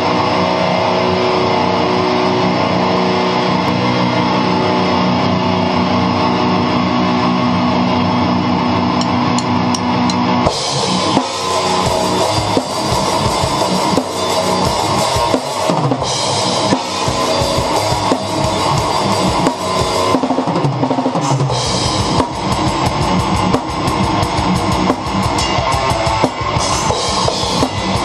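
Death metal track opening with sustained guitar chords. About a third of the way in, a live drum kit with Zildjian cymbals comes in playing along, with rapid snare and cymbal strokes. From about two-thirds in, a fast, continuous run of bass-drum strokes.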